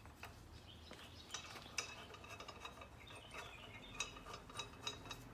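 Light metallic clicks and clinks from metal motorcycle parts and tools being handled while a part is fitted by hand, with a few sharper clicks near the end.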